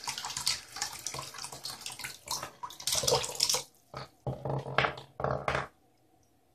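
Mini 12 V DC brushless submersible water pump running on 5 V USB power in a sink, its jet splashing in uneven surges over a low steady hum; pretty loud even at 5 volts. The sound cuts off suddenly near the end.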